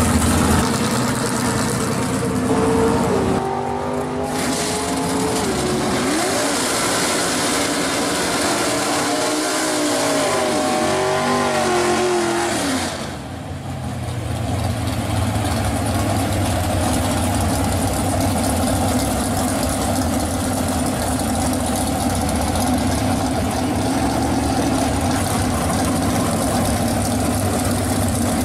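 Muscle-car V8 engines at a drag strip, revving hard with the pitch climbing and falling repeatedly through the first half. After a cut, one engine holds high revs over a steady roar of spinning tyres in a smoky burnout.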